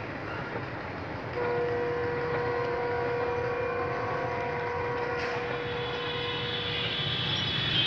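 A train's horn sounds one long, steady note starting about a second and a half in and holding for about five seconds, over the low rumble of a train on the tracks. Higher, thinner tones come in over the last few seconds.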